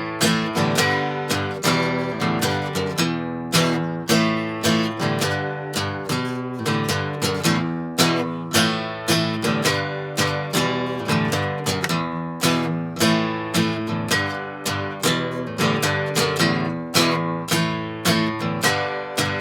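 Acoustic guitar strummed in a steady rhythm, chords changing: an instrumental break with no singing.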